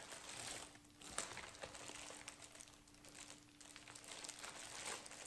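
Soft crinkling and rustling of kit packaging being handled, with a few faint ticks.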